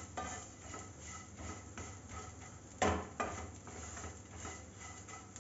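Spatula stirring and scraping vermicelli as it roasts in ghee in a nonstick frying pan: soft repeated scrapes against the pan, with one louder knock about three seconds in.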